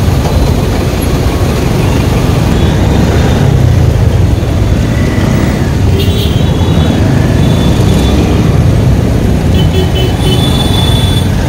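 Motorcycle riding slowly through heavy road traffic: a loud, steady low rumble of the bike and the surrounding vehicles, with faint high tones briefly about halfway through and again near the end.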